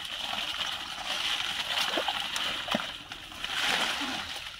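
Shallow water splashing and sloshing as hands and arms move through it among dense water hyacinth, groping for fish, with scattered small splashes.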